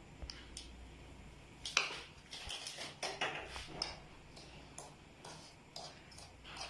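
Steel spoon clinking and scraping against a ceramic bowl while stirring dry powder, a series of light, irregular clicks, the loudest about two seconds in.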